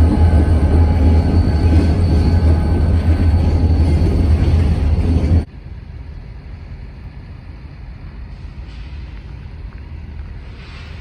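Freight train rolling past: a loud, steady rumble of cars and wheels on the rails that cuts off abruptly about halfway through, leaving a quieter low rumble.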